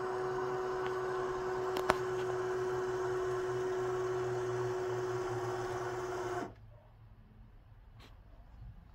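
Litter-Robot 3 self-cleaning litter box running its cleaning cycle: the drive motor hums with a steady whine as the globe rotates, with a single click about two seconds in. The sound cuts off abruptly about six and a half seconds in.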